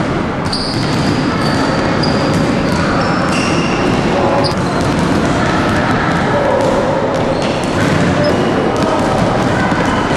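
Many basketballs bouncing on a wooden gym floor in a large hall, a dense run of overlapping thuds, with short high squeaks scattered through it.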